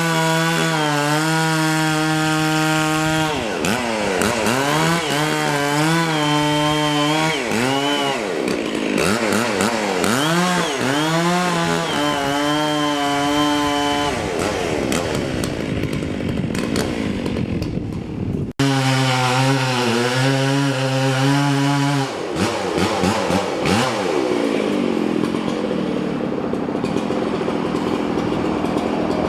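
Two-stroke chainsaw at high revs cutting wood, its revs dropping and climbing back several times as the throttle is eased and opened again. Near the end it runs at lower revs.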